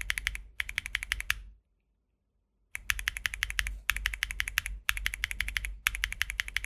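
Outemu Jade White linear mechanical switches on a Tofu60 2.0 keyboard being typed on in fast runs of clacky keystrokes. About a second and a half in, the typing stops for about a second of silence, then resumes.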